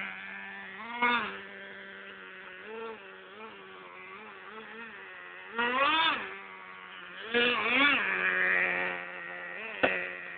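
Radio-controlled monster truck's motor buzzing steadily at idle, revved in short bursts that rise and fall in pitch: about a second in, around six seconds, and again around seven and a half to eight seconds. A sharp click near the end.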